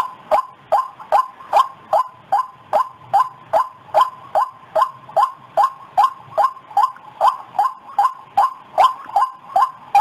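White-breasted waterhen (ruak-ruak) calling in a fast, even series of short falling notes, about two and a half a second, played as a lure call to draw in waterhens.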